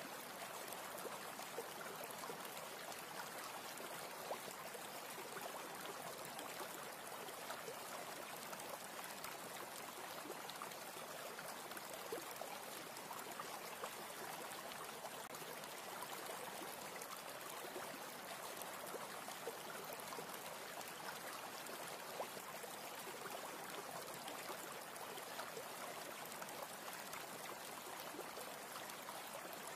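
A steady, even rushing noise like running water, with faint scattered crackles; it does not change.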